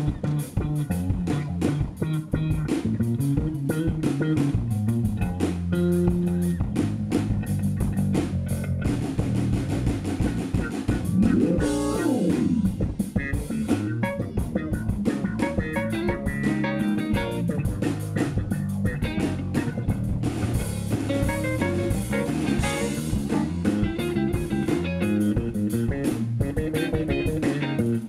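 Live band playing instrumental music on drum kit, bass guitar and electric guitar. About twelve seconds in, one note slides up in pitch and back down.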